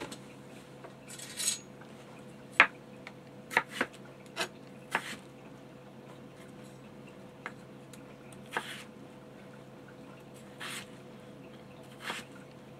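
Kitchen knife cutting yellow potatoes on a cutting board: scattered sharp knocks and clicks as the blade strikes the board and the pieces are handled, the loudest knock about two and a half seconds in.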